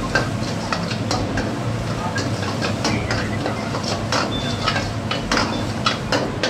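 Metal spatula scraping and clinking against a large metal kadai as onion masala is stirred and fried. Many sharp, irregular scrapes sit over a steady low hum.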